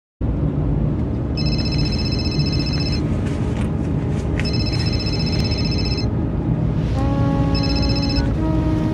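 A phone ringing with an electronic trill, three rings each about a second and a half long, over the steady low rumble of a car's cabin. Sustained low music notes come in about 7 seconds in.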